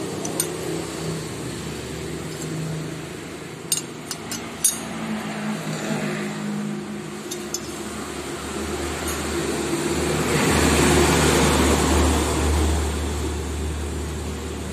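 Road traffic in the background, with a motor vehicle passing by, loudest about two-thirds of the way through. A few light metal clinks about four seconds in.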